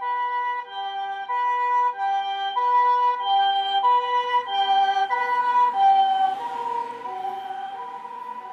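High-Medic ambulance's Japanese harmonic siren sounding its chord-like two-tone hi-lo call, each tone held about two-thirds of a second. About six seconds in, the pitch drops slightly as it passes, and it then grows fainter.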